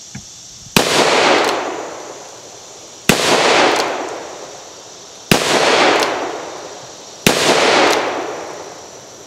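Four shots from a Taylor's & Co. tuned Smoke Wagon, an Uberti-made single-action revolver in .45 Colt, fired about two seconds apart with full-power 255-grain Double Tap semi-wadcutter loads. Each sharp report is followed by a long echo that dies away over about a second and a half.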